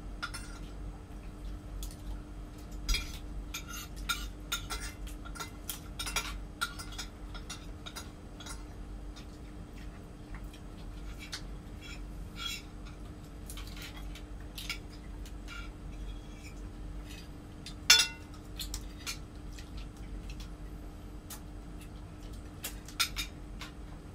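Forks and spoons clinking and scraping against plates and bowls during a meal, in scattered short clicks. One sharper clink about three-quarters of the way through is the loudest. A steady low hum runs underneath.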